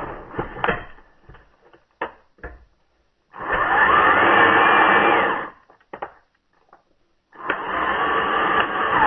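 Electric drill running in two bursts, the first about two seconds long and the second starting near the end, its motor pitch rising and then falling in each, as the helicoil kit's drill bit bores out stripped threaded holes in an aluminium transfer case. A few short clicks and knocks come between the bursts.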